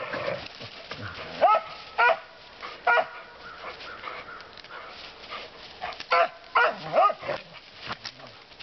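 Border Collie barking in short, high-pitched barks: four in quick succession, a pause of about three seconds, then another quick run of four.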